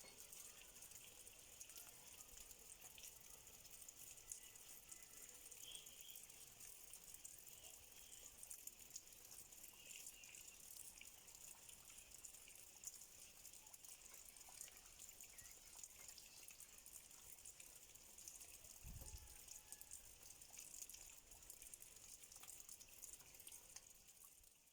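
Faint dripping and trickling water with a fine ticking patter, a few faint bird chirps, and a soft low thump about three-quarters of the way through.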